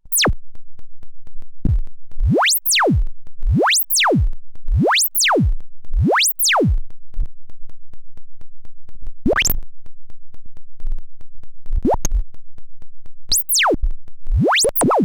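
Modular synthesizer tone sweeping up and down across its whole pitch range, about one rise and fall every 1.2 seconds, then slower and less regular sweeps after about 7 seconds, with a fast flutter in loudness. The sweeps come from an LFO whose modulation rate is set by a joystick through a second LFO.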